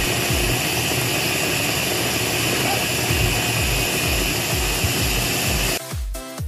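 Electric food chopper's motor running at speed as it blends fresh peppers and spices into a purée, over background dance music with a steady kick-drum beat. The motor sound cuts off abruptly near the end, leaving only the music.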